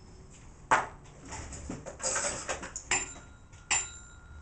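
Kitchen utensils and containers being handled: a sharp knock about three-quarters of a second in, some scraping and rustling, then two metallic clinks that ring briefly near the end.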